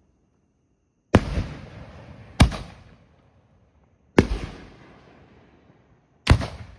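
Aerial firework shells going off: four sharp booms over about five seconds, each trailing off in an echoing rumble.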